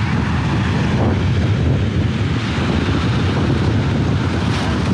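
Strong wind buffeting the microphone on an open beach: a loud, steady low rumble that flutters constantly.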